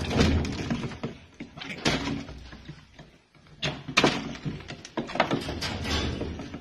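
A cat and a chinchilla scuffling in a small wooden enclosure: irregular knocks and thumps as they jump and bump against the walls and floor, with a short lull about three seconds in.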